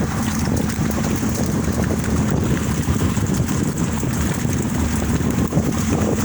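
Fishing boat's engine running steadily under way, a low, even drone, with wind buffeting the microphone.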